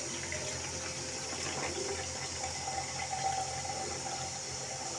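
Starchy rice-washing water poured steadily from a steel bowl into an empty plastic honey jar, the jar filling as it pours.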